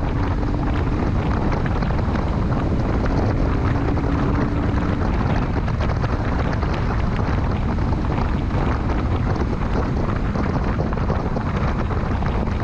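Loud, steady wind rush on the microphone over a motorcycle running at road speed: the BMW R1150 GS Adventure's boxer-twin engine droning under the wind.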